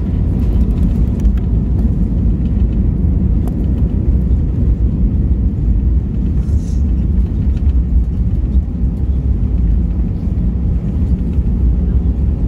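Airbus A320 cabin noise heard from a passenger seat: a steady low rumble of engines and airflow, with faint scattered ticks and rattles.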